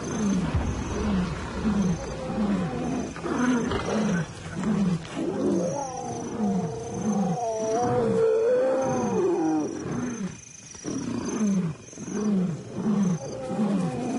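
Male lions roaring in a threat display: a steady run of short falling grunts, about two a second, with one long wavering call in the middle.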